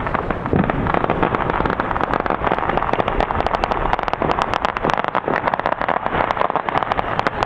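Fireworks and firecrackers going off in a dense, rapid, continuous crackle of sharp pops, many each second, with no break.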